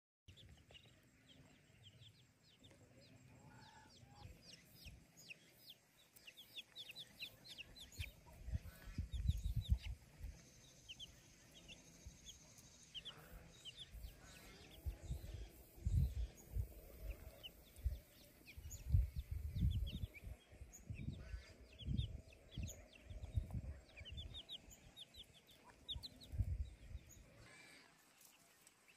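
Young chicks peeping over and over in short, high-pitched cheeps. Intermittent low rumbles come and go underneath and are louder than the peeping.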